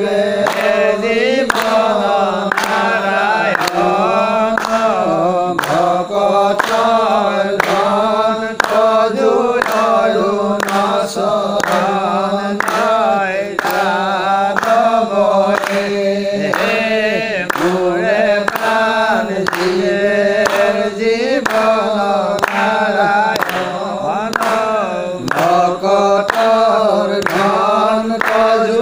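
Assamese naam-prasanga devotional singing: a group of voices chanting a hymn, over a steady beat of sharp strikes about two a second.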